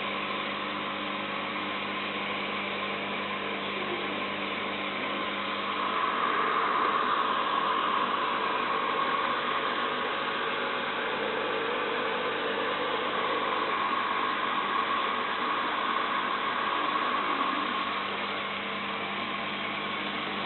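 Boat engine running steadily under a constant hiss, growing louder about six seconds in and easing back near the end.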